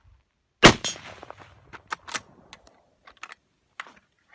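A single shot from a Savage Axis II bolt-action rifle about a second in, sharp and loud with a short ringing tail, followed by a scatter of lighter clicks and knocks.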